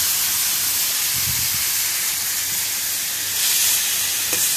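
Marinated chicken strips and sliced onions sizzling in a hot frying pan, just tipped in: a steady, even hiss.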